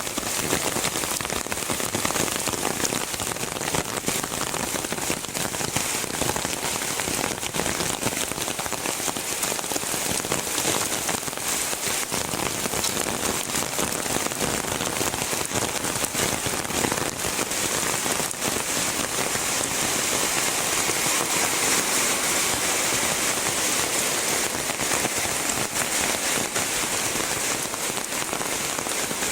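Heavy rain falling steadily: a dense, even hiss made of many close drop impacts.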